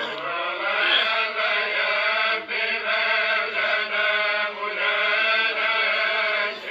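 A voice chanting in long, held, wavering notes.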